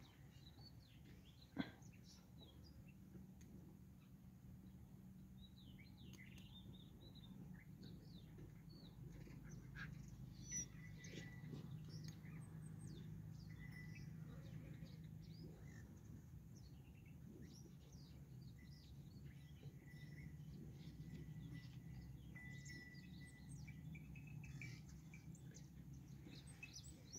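Near silence outdoors: faint birds chirping over a low steady hum, with a single sharp click about a second and a half in.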